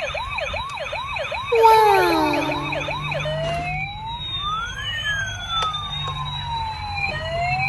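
Toy ambulance's electronic siren sound effect. It starts with a fast yelp of rapid rising-and-falling sweeps, with a short louder falling tone about one and a half seconds in. About three and a half seconds in it switches to slower, overlapping wailing sweeps.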